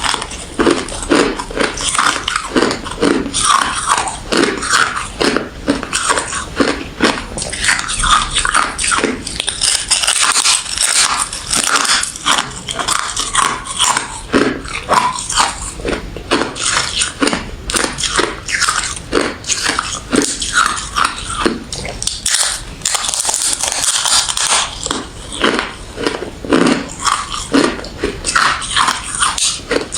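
A person biting and chewing ice close to the microphone: a continuous run of crisp crunches, several a second.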